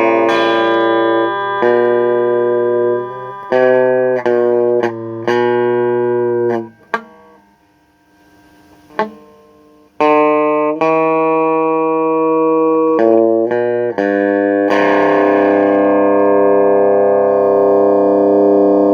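Instrumental music: long held chords that change every second or so, with a three-second break near the middle broken by two short clicks, then one long held chord.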